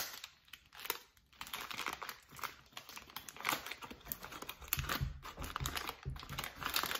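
Thin plastic bag crinkling and rustling irregularly as it is handled and squeezed in the hands.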